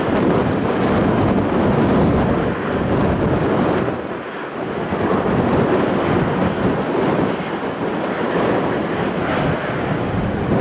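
Loud, continuous rumble of a jet airliner's engines, easing briefly about four seconds in, with wind buffeting the microphone.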